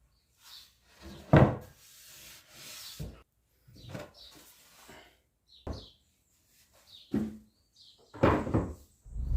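Wood being handled: a run of irregular knocks and scraping rubs of wood against wood. The loudest knock comes about a second in, and a longer scrape comes near the end.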